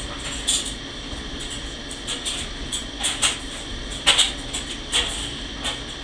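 Small sticker sheet crinkling and rustling as it is handled by hand: about six short, irregular crackles, the loudest about four seconds in, over a steady low hum.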